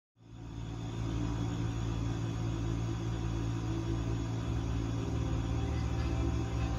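Steady low rumble with a hum, fading in over the first second and then holding level.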